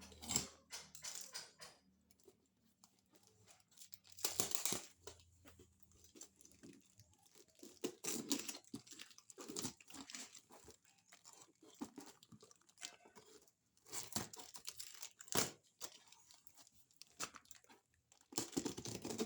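A cardboard box being torn open by hand: packing tape and cardboard ripping, with packaging crinkling and rustling in irregular bursts, the loudest of them a few seconds apart.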